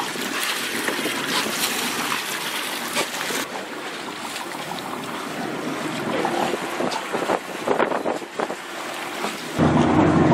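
Wind buffeting the microphone over water splashing and sloshing alongside a fishing boat. A louder low rumble sets in near the end.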